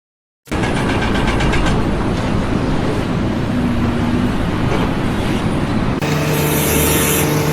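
Loud running of a heavy engine or machine with a low rumble, starting about half a second in. About six seconds in it changes to a steadier hum with a couple of held tones.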